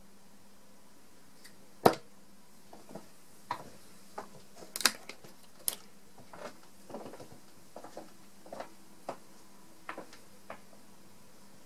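A 25 g tungsten steel-tip dart strikes a bristle dartboard with a single sharp thud about two seconds in. It is followed by a scatter of smaller clicks and knocks, two of them sharper near five and six seconds in, as the darts are pulled out of the board and handled.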